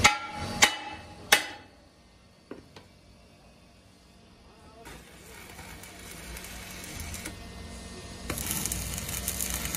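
Three hammer blows on a steel truck wheel rim in the first second and a half, each ringing briefly. About eight seconds in, a stick welder's arc strikes on the rim and starts a steady crackling hiss.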